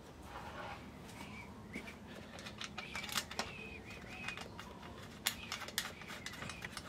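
Faint scattered clicks and light metallic taps of bolts and a steel mounting bracket being handled and set in place by hand on a scooter's fuel pump. Faint high chirps sound between the clicks.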